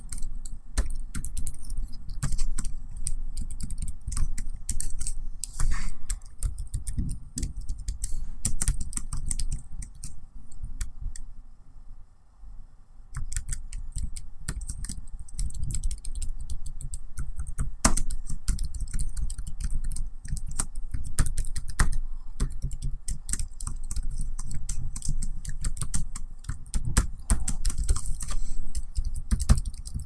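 Laptop keyboard typing: a fast, irregular run of keystroke clicks with a short pause of about two seconds a little before the middle.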